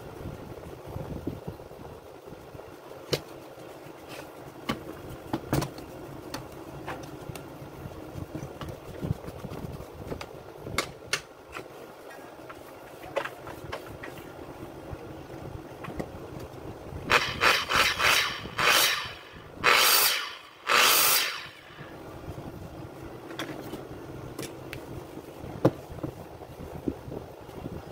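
Workshop handling sounds: scattered sharp clicks and knocks of tools and metal parts against a steady low hum. About two-thirds of the way through comes a cluster of loud rushing bursts: a quick run of short ones, then two longer ones.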